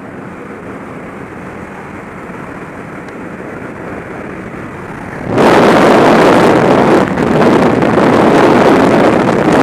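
Steady noise of a jump plane's cabin with the door open, engine and slipstream together. About five seconds in, a sudden loud rush of wind on the microphone begins as the skydivers leave the aircraft into the slipstream and freefall.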